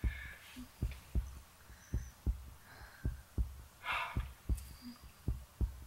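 Heartbeat sound effect in a horror-film soundtrack: low, dull thumps, often in pairs, about one beat a second, building suspense.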